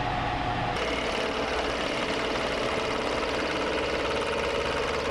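Milling machine cutting metal: a steady spindle and cutter hum with a higher whine over it. The tone changes abruptly about a second in.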